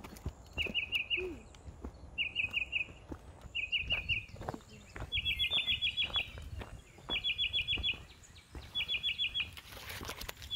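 A songbird repeating a short, quick trill of several notes about every one and a half seconds, over footsteps on a dirt trail.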